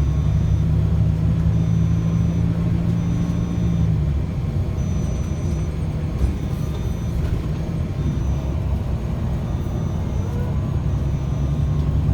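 Steady low rumble of a moving road vehicle's engine and tyres.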